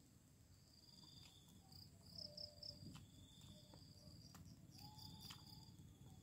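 Near silence, with faint high-pitched insect chirps coming and going in the background and a few faint clicks.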